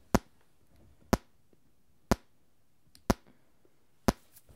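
Test-pulse clicks played through headphones, one sharp click about every second (five in all), used to check a microphone's pulse response.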